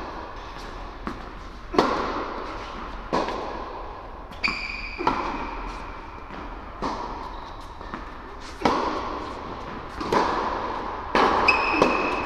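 Tennis rally on an indoor hard court: a string of sharp ball strikes from rackets and bounces on the court, each echoing in the large hall. Tennis shoes squeak on the court twice, briefly, about four seconds in and again near the end.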